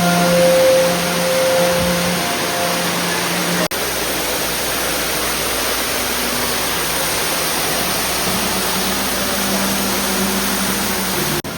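Water from a tall underground cave waterfall falling, a loud, steady rush of spray, with a few faint held music notes over it in the first few seconds.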